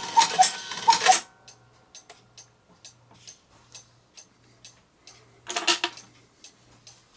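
Cuckoo clock calling the hour: two two-note cuckoo calls, each note falling, over the wheeze of its bellows in the first second. Then the movement ticks steadily, about three ticks a second, with a short clattering burst about five and a half seconds in.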